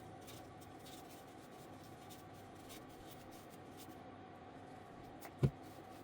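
Light scratching and small clicks of objects being handled over a steady electrical hum, with one low knock about five and a half seconds in.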